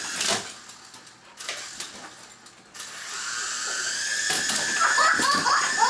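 Small battery-powered toy helicopter's electric motor whining. It comes in about halfway through, rises slightly in pitch as it spins up, then holds a steady high whine.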